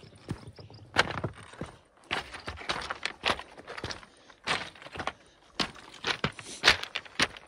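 A hiker's footsteps on a mountain trail: uneven steps, about two a second.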